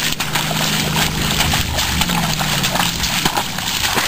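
A horse pawing at a mud puddle with a front hoof, splashing and slopping wet mud in irregular strokes. A low steady hum runs underneath.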